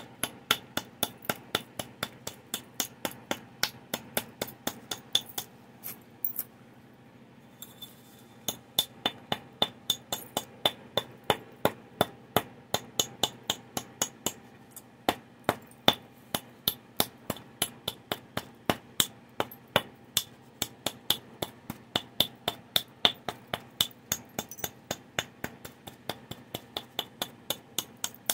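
Antler billet striking the edge of a stone Clovis-point preform: a long run of sharp, glassy clicks, about three a second, with a short pause about six seconds in.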